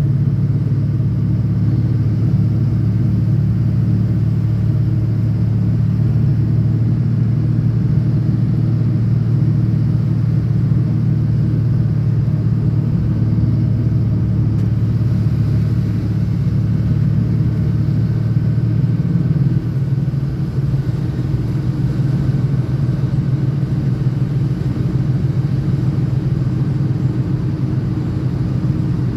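Diesel pickup truck driving at a steady speed, a steady low engine and road drone that eases slightly about two-thirds of the way through.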